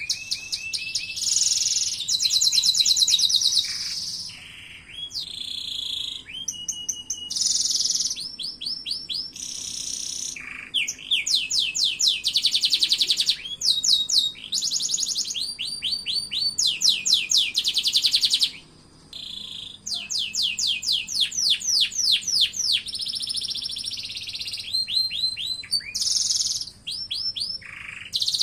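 Domestic canary singing a long, varied song of fast rolling trills and rapidly repeated chirps, in phrases of a second or two with short breaks between them.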